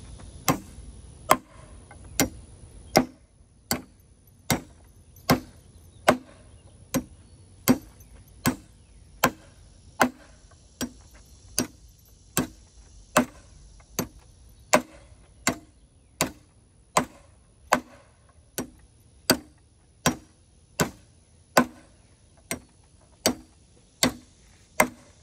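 Claw hammer driving nails into a pine board, one sharp strike about every 0.8 seconds in a steady, even rhythm, about thirty blows in all.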